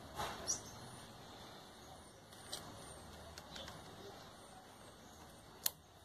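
Light metal scrapes and clicks of a spring and suspension rod from a washing machine's basket being worked together by hand with a small screwdriver, ending in one sharp click near the end.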